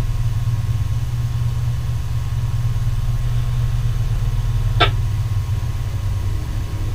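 Steady low hum, with one brief short sound about five seconds in.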